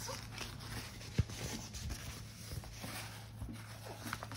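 Faint rustling and handling of a folded diamond-painting canvas in its plastic film as it is pressed flat and lifted, with a single sharp tap about a second in.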